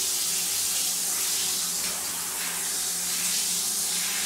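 Shower running: a steady spray of water hitting the glass shower door, with a low steady hum underneath.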